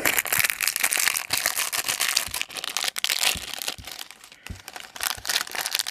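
Clear plastic bag of LEGO minifigure parts crinkling as it is handled in the hands, dense over the first three seconds or so and then thinning to scattered crinkles.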